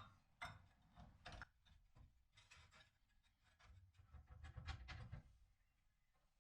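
Faint handling sounds of tools or metal parts: scattered light clicks, knocks and rubbing, busier in the second half.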